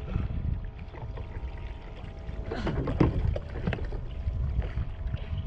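Water lapping and slapping against a kayak hull, over a low rumble of wind on the microphone. A few sharp knocks come about three seconds in.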